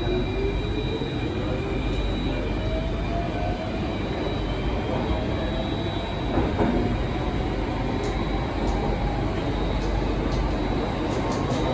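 Singapore MRT train running and pulling away, the traction motors whining in tones that rise in pitch as it gathers speed, over a steady rumble of wheels on rail.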